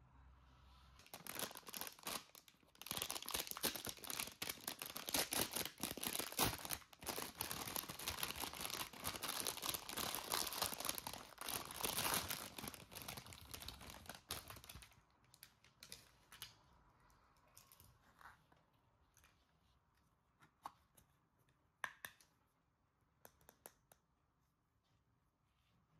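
Packaging being torn open and crinkled, a dense crackling that lasts about fourteen seconds. It gives way to scattered light clicks and taps.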